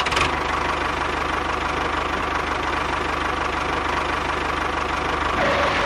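Tractor engine idling steadily with a fast, even knocking beat. It starts abruptly and fades out near the end.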